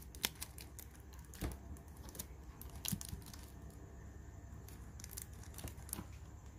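Handling noises from a Zippo lighter being handled: a few scattered light clicks and taps, about a second or two apart, over a faint low hum.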